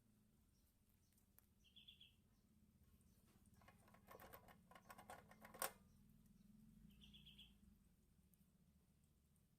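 Quiet room tone with a run of small clicks and taps in the middle, ending in one sharp click, the loudest sound. A bird chirps faintly twice, once about two seconds in and once near the end.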